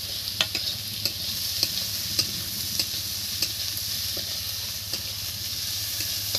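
Sliced onions sizzling as they fry in oil in a kadai, stirred with a metal spatula that clicks and scrapes against the pan at irregular moments over a steady hiss.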